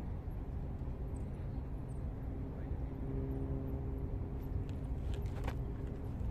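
Steady low outdoor rumble with a motor's hum that comes in about two and a half seconds in and holds steady to near the end. A few faint clicks sound just before the end.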